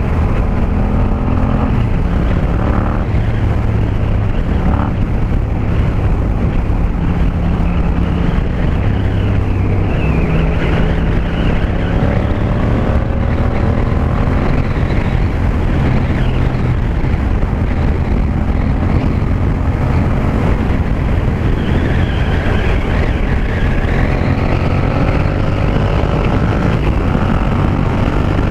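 Yamaha MT-07's parallel-twin engine through an Akrapovic 2-into-1 carbon exhaust, heard from the rider's seat under way. The engine note rises in pitch several times as the bike accelerates.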